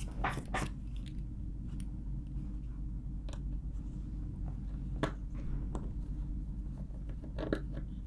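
Small screwdriver working screws out of a laptop's bottom panel: a few faint, scattered clicks and scrapes of metal on metal over a steady low hum.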